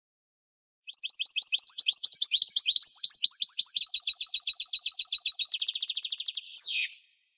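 European goldfinch singing: from about a second in, a fast jumble of high twittering notes settles into an even run of about ten repeated notes a second, then speeds into a quicker trill and ends on a single falling note.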